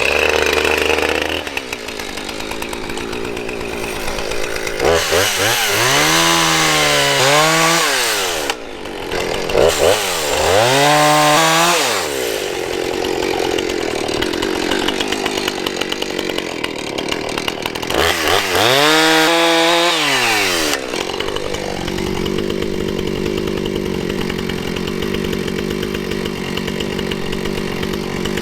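Husqvarna Rancher 455 two-stroke chainsaw cutting logs, running continuously; its engine note swings down and back up in pitch three times, about five, ten and eighteen seconds in. It settles into steadier running for the last several seconds.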